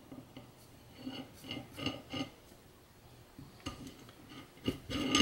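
Steel jam nut being threaded by hand onto the end of a ball screw: faint, scattered metallic clicks and light scraping, with a few louder clicks near the end as the screw shaft is turned.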